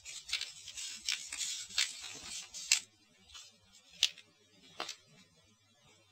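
Paper pages of a model-kit instruction booklet being turned and handled: a rustle for about the first three seconds, crisp paper snaps running through it, then a few separate snaps.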